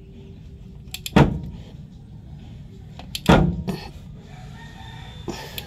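Sharp metallic clacks from a wrench and socket on an engine's cylinder head bolts, three of them about two seconds apart.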